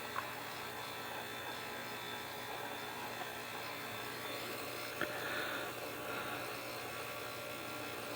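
Steady low electrical hum, with two faint clicks: one just after the start and one about five seconds in.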